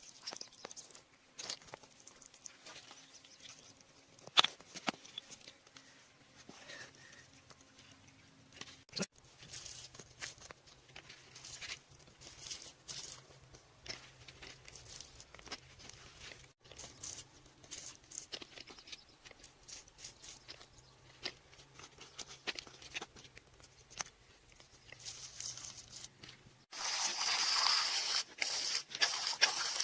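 Small crunches, scrapes and sharp clicks of hands and tools working in soil and stone, in short separate bursts. A loud steady hiss starts about three seconds before the end.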